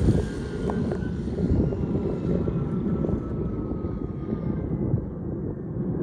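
Kingtech K-30TP model turboprop and its two-blade propeller running at low throttle as the model plane comes in to land. A thin turbine whine slides slowly down in pitch over a steady low rumble.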